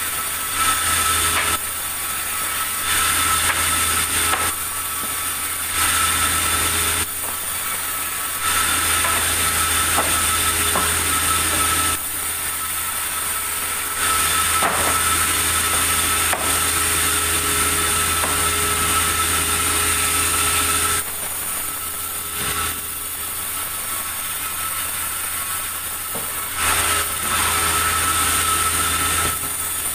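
Sawmill saw running steadily with a constant hum, growing louder during repeated cutting passes through wood that last from about one to seven seconds each, the longest in the middle.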